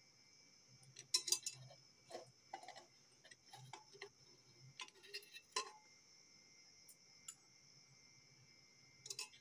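Scattered clinks and knocks of a ceramic plate being handled and lifted out of an aluminium pressure cooker, the sharpest cluster about a second in and a couple more near the end, over a faint steady high whine.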